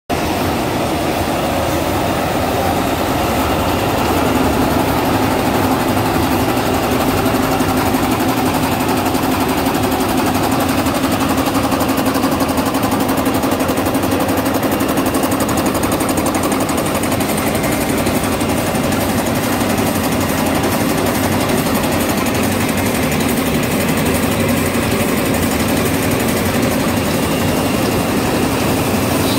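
Automatic pocket tissue production line running: a steady, dense, fast mechanical clatter with a continuous low hum from the rollers, folding unit and conveyor.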